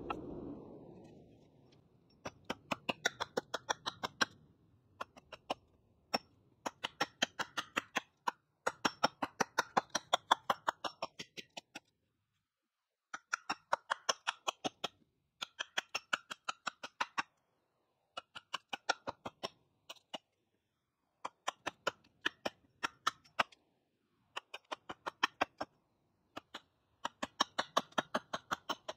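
A hand tool working a wooden pole on a trestle: bursts of quick, even strokes, about five a second, each burst one to two seconds long, with short pauses between.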